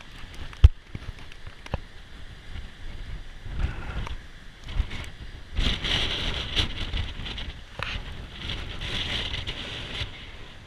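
Wind buffeting the GoPro's microphone in uneven gusts over the rush of a waterfall, with a few sharp clicks in the first two seconds, the loudest about half a second in.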